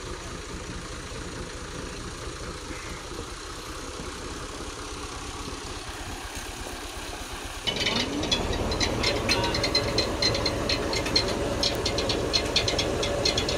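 Farm tractor diesel engine running steadily; about eight seconds in the sound turns suddenly louder, with a rapid clatter of ticks and rattles over the engine.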